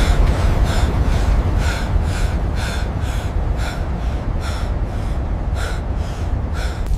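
A man's short, sharp gasping breaths, roughly one a second, over a loud, steady low rumble of a furnace.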